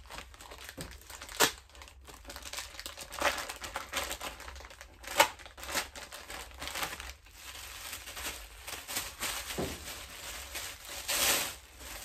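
Plastic bags crinkling and rustling on and off as garments are pulled from them and handled, with a few sharper, louder crackles.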